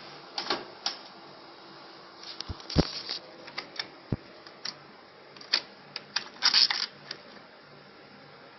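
Irregular clicks and taps of small lock hardware being handled and fitted, with a few heavier knocks and a short rattling run of clicks a little past halfway, over a steady low hum.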